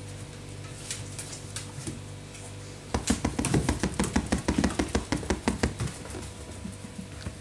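A puppy's paws and claws pattering quickly on a hard floor as it scampers about, a fast run of light taps for about three seconds starting near the middle, over a steady low hum.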